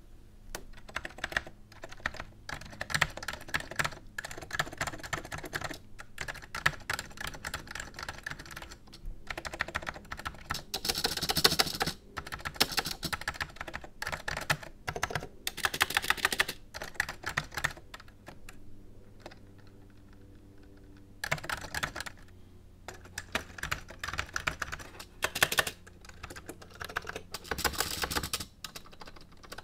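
Typing on a Mitsumi-made Commodore Amiga 2000 keyboard: fast runs of keystroke clacks, broken by short pauses and a longer lull about two-thirds of the way through.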